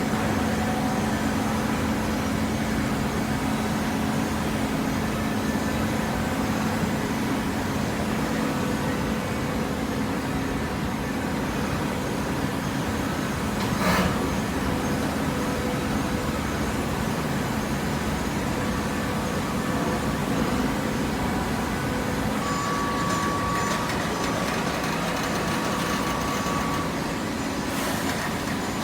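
Hydraulic cardboard baler running: a steady machine hum with a short hiss about halfway through.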